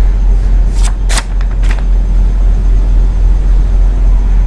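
A steady low hum with a few short clicks about one to two seconds in, from the plastic screwdriver-bit holder of a drill bit set being handled.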